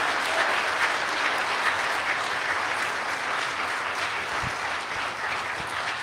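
Congregation applauding, many hands clapping steadily and tapering slightly toward the end.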